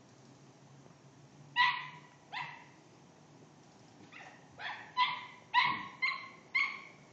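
A dog barking: two barks, a pause of about two seconds, then a quicker run of six barks.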